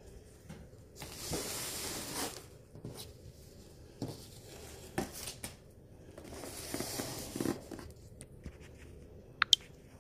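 Rustling and handling noises: two stretches of rustling about a second long each, with a few light knocks and clicks between them and two sharp clicks near the end.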